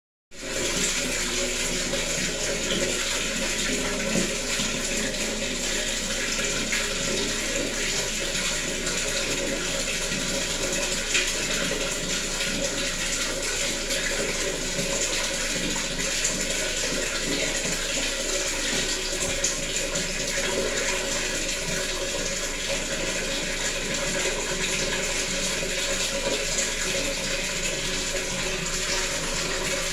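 Water running in a steady, continuous rush, starting just after the beginning and holding an even level throughout.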